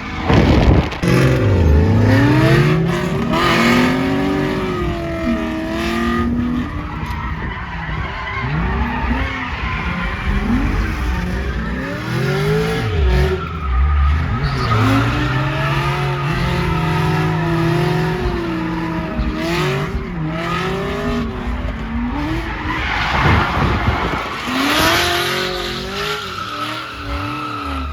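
Cadillac CTS-V's LS2 V8 being revved up and down again and again through a drift, with the rear tyres squealing and skidding.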